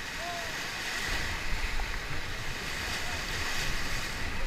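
Whitewater rapids rushing steadily around a raft, with a low rumble of wind and water buffeting the microphone.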